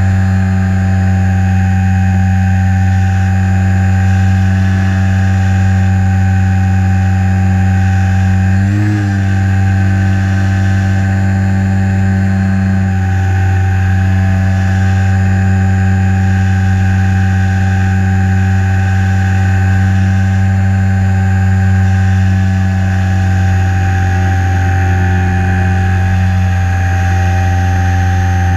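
Electric motor and propeller of a Hobbyzone Super Cub LP RC plane, heard from the onboard camera, running at a steady cruise throttle with a low, even whine. The pitch wobbles briefly about nine seconds in.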